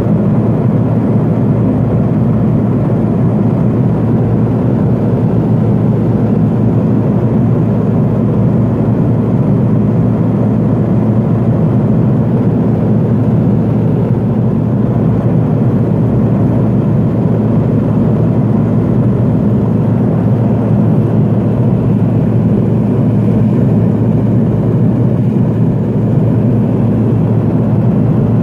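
Cabin noise of a Pilatus PC-12 in flight: its single Pratt & Whitney PT6A turboprop engine and propeller make a steady, loud, low noise that does not change.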